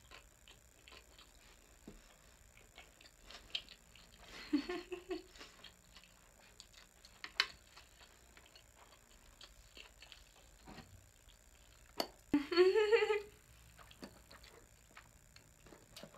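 Close-up eating sounds from chewing sushi: scattered soft mouth clicks and light chopstick taps, with two short "mmm" hums from the eater, one about four seconds in and a louder one rising in pitch about twelve and a half seconds in.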